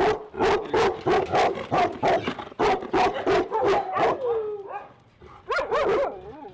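A dog barking rapidly and repeatedly, about three barks a second, then breaking off into whines near the end.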